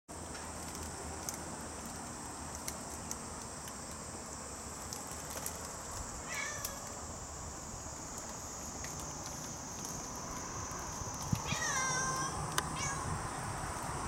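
A cat meowing twice, briefly about six seconds in and longer, falling in pitch, near the end, over a steady high buzz of a cicada. Scattered light clicks of claws catching on the window screen mesh.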